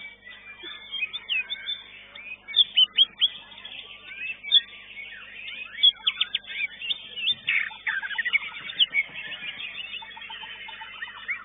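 Several caged songbirds singing at once in competition: a dense run of fast chirps and whistled sweeps, loudest in bursts from about two and a half to eight seconds in.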